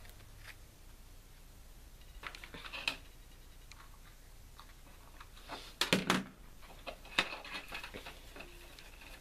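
Hands working a ribbon-wrapped bouquet and a hot glue gun: faint rustling and handling noise with a few light knocks, the loudest about six seconds in.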